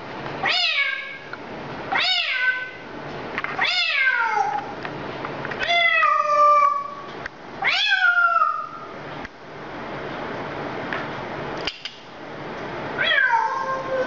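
Repeated meowing: six drawn-out meows, each falling in pitch, coming about every one and a half to two seconds, with a pause of about five seconds before the last.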